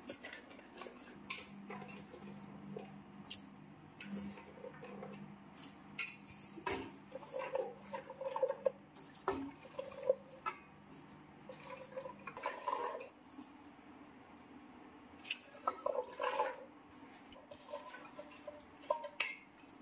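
Intermittent clinks and knocks of a cooking pot and utensils with small splashes of water, as washed pieces of green jackfruit are put into a pot of salted turmeric water to parboil.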